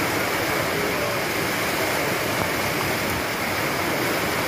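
Flash floodwater rushing down a road in a steady, unbroken torrent.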